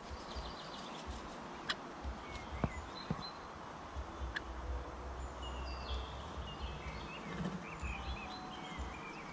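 Outdoor ambience with small birds chirping in short scattered calls, busier in the second half, over a steady background hiss and low rumble, with a few sharp clicks.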